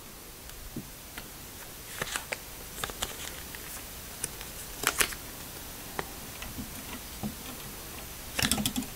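Light clicks and taps of hands handling a folding camera and a roll of 120 film, with a sharper click about five seconds in and a quick run of small knocks near the end.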